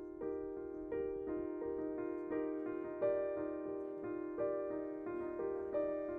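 Background music: a soft piano playing a gentle, repeating pattern of held chords, changing about twice a second.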